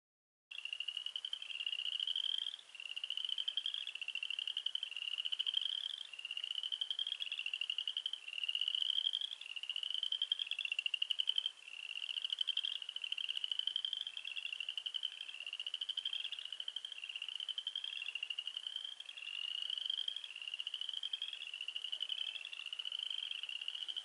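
Frog chorus: many frogs calling over one another, each call a pulsed trill rising in pitch and lasting about a second, repeating roughly once a second. It starts abruptly about half a second in.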